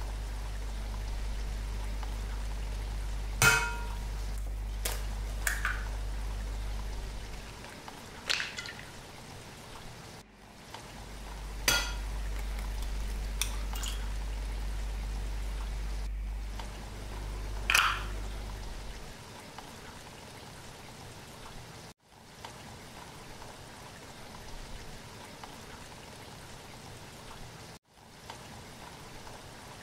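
Kitchen preparation sounds: oil pouring into a glass baking dish, with several sharp clinks and taps of glass and utensils, over a low hum that stops about two-thirds of the way through.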